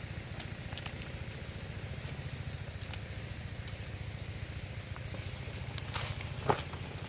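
A steady low engine throb in the background, with faint bird chirps and a few light clicks and rustles as a cast net holding live fish is handled; one sharper click near the end.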